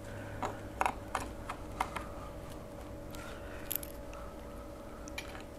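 Scattered light clicks and taps of a metal door strike plate, screws and a screwdriver being handled, over a faint steady hum.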